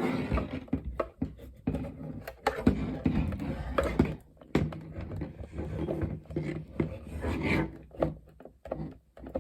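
A Macintosh external floppy drive's plastic case being pried and pulled apart by hand: a busy run of scraping and handling noise broken by many sharp clicks and knocks.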